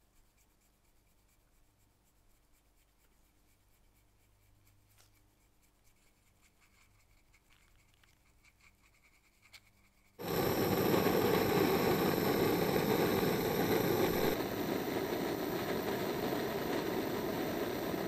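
Faint scratching of a small brush scrubbing inside the hole of a knurled metal lighter part. About ten seconds in, a gas torch flame starts abruptly with a loud, steady hiss as it heats the part hung on a wire.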